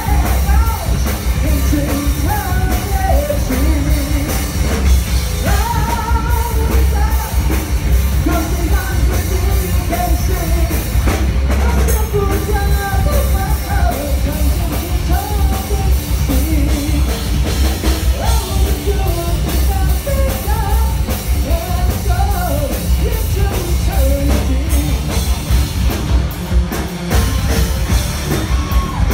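Heavy metal band playing live: distorted electric guitars, bass and drum kit, with a sung vocal line bending over the top and a heavy, booming low end.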